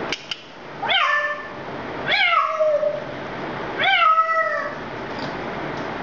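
African grey parrot mimicking a cat's meow three times, each call sliding down in pitch and then drawn out. Two short clicks come just before the first meow, over a steady background hiss.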